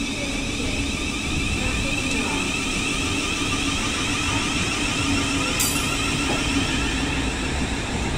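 Thameslink Class 700 electric multiple unit pulling away from the platform: a steady hum from its traction equipment over the noise of wheels running on the rails. A brief click a little past halfway.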